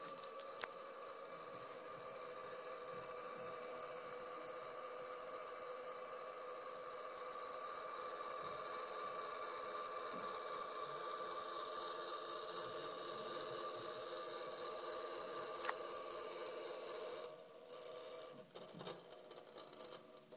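Small solar-powered motor of a toy windmill whirring steadily as its plastic blades spin. About 17 seconds in the whir drops off suddenly, and a few light clicks follow.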